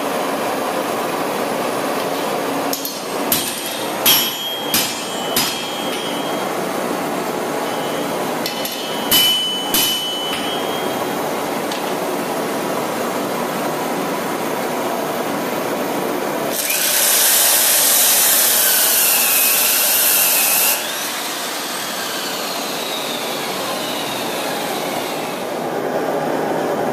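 Electric forge blower running steadily, with a few sharp metal clanks that ring about three and nine seconds in. Past the middle, an abrasive chop saw cuts through steel rod for about four seconds with a loud hiss, then stops suddenly and its motor whines down.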